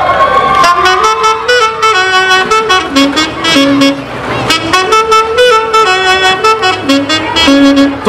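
A Peruvian orchestra led by saxophones, with harp and double bass, strikes up about half a second in and plays a stepwise melody over a steady rhythmic pulse. Crowd noise fades out as the tune begins.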